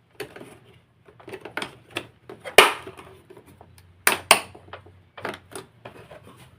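Plastic housing of an Electrolux ProSilent vacuum cleaner being handled and pried apart with a screwdriver: an irregular series of clicks and knocks, the loudest about two and a half seconds in and a pair near four seconds.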